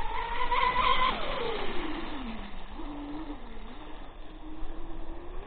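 Twin electric motors of a Minicat 820 EP RC catamaran whining high at full throttle. About a second in, the throttle comes off and the whine falls steeply in pitch, then settles to a lower, steady whine at part throttle.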